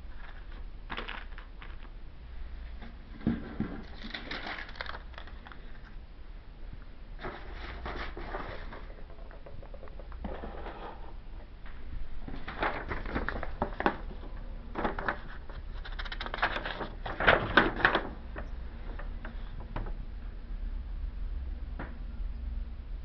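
Plastic model kit parts and their packaging being handled: several bouts of crinkling and light clattering, the loudest near the three-quarter mark, over a steady low hum.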